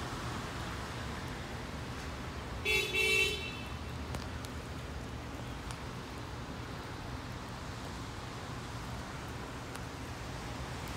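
Two short horn toots in quick succession about three seconds in, over a steady low rumble.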